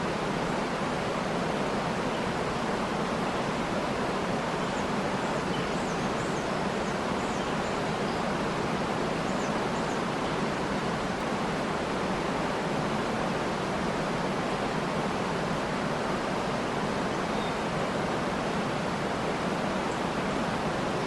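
Waterfall: a steady rush of falling water, with a few faint, short high bird chirps a quarter to halfway through and once more later.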